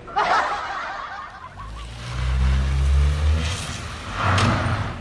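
Low engine-like rumble of a motor vehicle, lasting about two seconds in the middle, between shorter bursts of indistinct noise.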